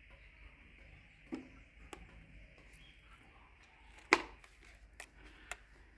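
A few scattered sharp clicks and knocks, the loudest about four seconds in, over a faint steady high hiss.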